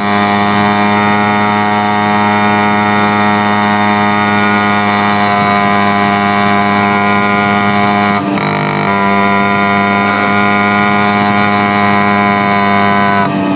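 TVS 50 moped's small two-stroke engine, with the silencer end cap removed, running at a steady speed while ridden. It gives a loud, even, screaming exhaust tone that dips briefly about eight seconds in.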